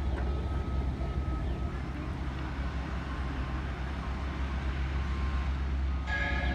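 Heavy construction machinery running with a steady low rumble, with the faint repeated beeping of a reversing alarm. A louder backup alarm begins beeping near the end.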